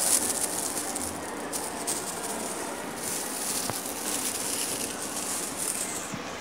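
A clear plastic bag of salt rustling and crinkling as it is handled, with the grains rattling inside, while salt is measured out with a half-teaspoon.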